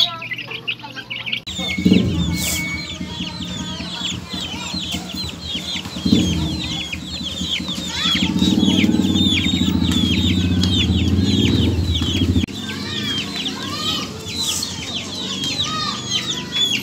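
A flock of young chicks peeping, a dense, continuous run of short, high, falling peeps. Underneath, a low steady drone stops abruptly about twelve seconds in.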